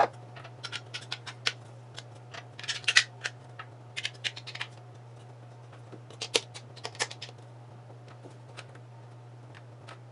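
Small hard clicks and clatters of bolts and 3D-printed plastic parts being handled and fitted together, in irregular clusters that thin out after about seven seconds. A steady low hum runs underneath.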